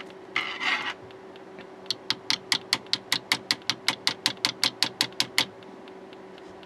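Steady low electrical hum from a powered LCD monitor with a faulty backlight inverter board. About half a second in there is a short rustle, and from about two seconds in comes a regular run of about twenty sharp clicks, some six a second, lasting about three and a half seconds.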